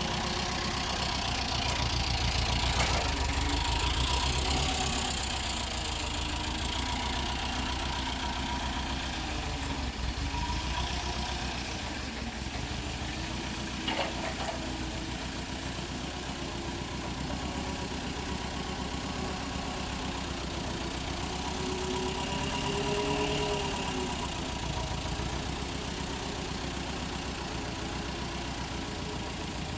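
Forklift engine running steadily, with one sharp click about 14 seconds in and a brief rise and fall in pitch a little over two-thirds of the way through.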